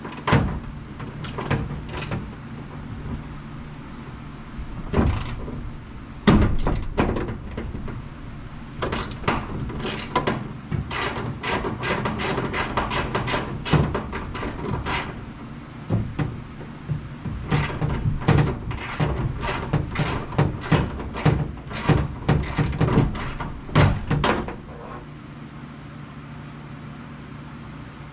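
Hand ratchet wrench working a stubborn door hinge bolt loose, in runs of sharp clicks at about three or four a second, with some pauses between runs.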